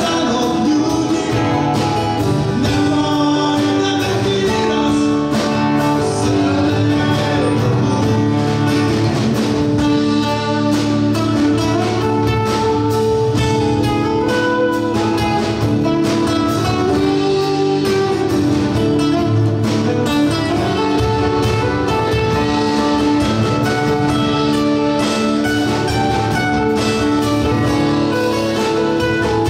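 Live band playing with acoustic and electric guitars, electric bass, drum kit and keyboard, with a lead vocal over the top.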